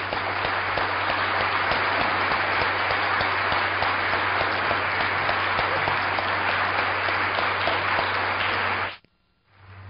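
A hall full of delegates applauding after a speech, a dense steady clapping over a low hum from the old film soundtrack. The applause cuts off abruptly about nine seconds in.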